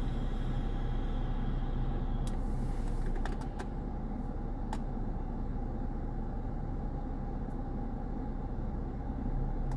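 Steady low rumble of a stopped car idling, heard from inside the cabin, with a few faint scattered clicks. A high hiss in the cabin drops away about three seconds in.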